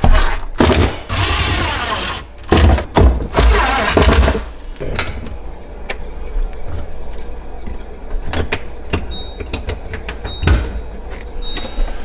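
Screws being driven to refasten the fridge's plastic rear panel: several short noisy bursts, some with a thin high whine, in the first four seconds, then quieter clicks and small knocks of plastic parts being fitted.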